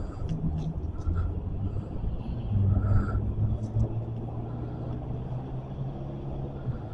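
Low, steady vehicle engine rumble with a hum, swelling about three seconds in and easing off afterwards.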